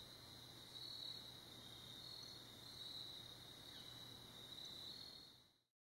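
Faint, steady insect chorus: a high trill that swells and fades, over a low background hum, cutting off suddenly near the end.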